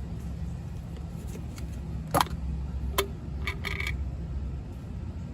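Metal brake parts and tools being handled: two sharp clicks about a second apart, then a short light clinking. A steady low rumble runs underneath.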